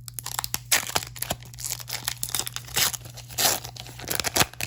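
A Pokémon trading-card booster pack's wrapper being torn open and crinkled by hand, in irregular bursts of crackling and ripping. A steady low hum runs underneath.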